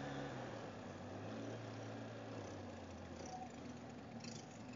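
Quad bike engine running steadily while riding, heard faintly, its pitch shifting slightly a few times.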